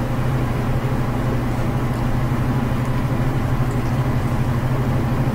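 A steady low mechanical hum that stays even throughout, with nothing else standing out.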